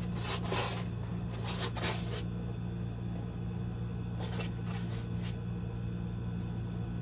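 Packaging rustling in three short spells as a boxed item is unwrapped and handled, over a steady low air-conditioner hum.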